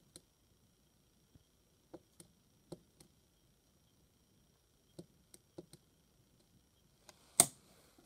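Keys of a small plastic number keypad being pressed one after another, a string of soft clicks, then about seven seconds in a single loud clack from the safe's electric solenoid latch pulling back as the code is accepted and the lid unlocks.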